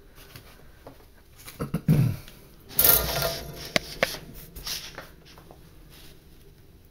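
Handling noises: scattered light clicks and knocks, with a louder rustling bump about three seconds in as the camera is picked up and moved, followed by two sharp clicks.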